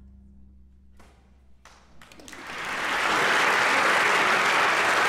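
The orchestra's final chord dies away, leaving a low note ringing softly, then a concert audience breaks into applause about two seconds in, swelling within a second to steady, loud clapping.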